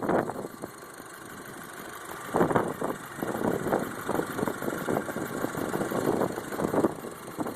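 Volkswagen Passat 2.0T FSI turbocharged four-cylinder idling with a fast, light mechanical ticking, which the owner judges acceptable and no cause for alarm. The ticking grows louder about two seconds in.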